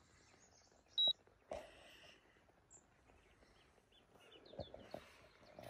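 A single short, high beep from a Korum digital fishing scale about a second in, as it locks its weight reading on hold. Faint handling knocks and rustles around it.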